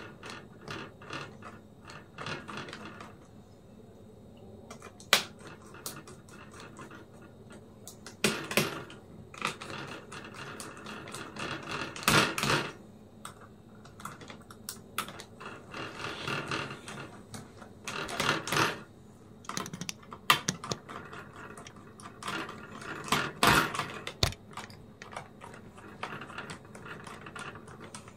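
Small screwdriver driving the heatsink screws back into an HP ProBook 4540s laptop: irregular clicks, ratcheting and scraping, with louder handling knocks about 8, 12, 18 and 23 seconds in.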